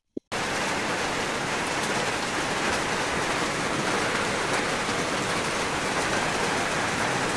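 Steady rain falling on corrugated tin roofs and wet ground. It starts abruptly just after the beginning.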